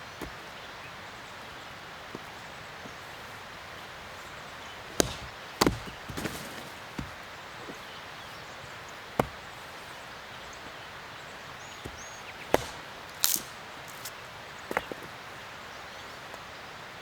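Axe splitting firewood: a string of sharp, irregularly spaced chops, about eight over ten seconds starting about five seconds in, over a steady background hiss.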